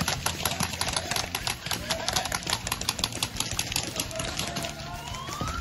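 Airsoft guns firing, a dense clatter of rapid clicks as several players shoot at once. Near the end a siren starts to wind up in one rising wail.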